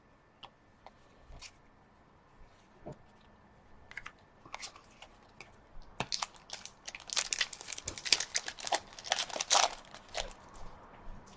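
A trading-card pack wrapper being torn open and crinkled, a dense run of sharp crackling from about six seconds in that dies away near the end, after a few light ticks of cards being handled.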